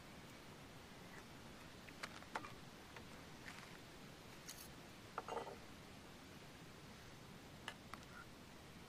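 Near silence broken by a handful of faint, sharp clicks and clinks: a spoon against a metal canteen cup, and small items handled on a wooden picnic table.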